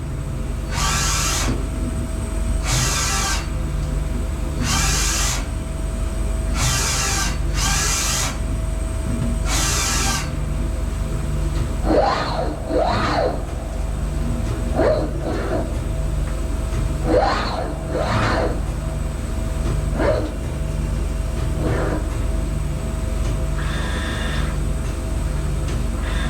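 Mazak VARIAXIS i-800 five-axis machining center moving its axes. First come short rushes of noise about every two seconds, then several whines that rise and fall in pitch as the servo drives speed up and slow down. Under it all runs a steady machine hum.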